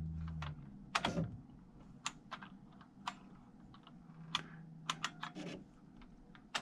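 Keys on an IBM Wheelwriter 30 electronic typewriter pressed one at a time: scattered separate clicks at an uneven pace, over the machine's faint steady hum.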